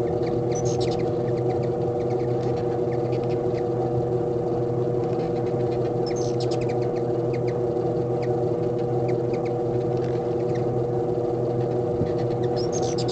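Hummingbirds squabbling at a feeder, giving short bursts of high, squeaky chittering calls about a second in, around the middle and near the end. A steady low hum runs underneath.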